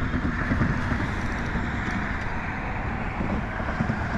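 Steady wind rumble on the microphone over the wash of open water.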